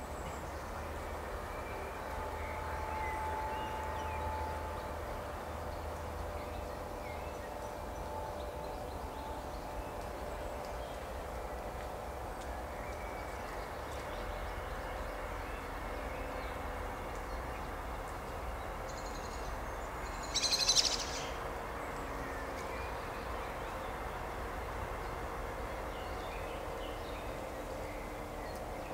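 Outdoor woodland ambience: a steady hiss with a low rumble and faint bird calls. About two-thirds of the way in comes one short, loud, harsh call.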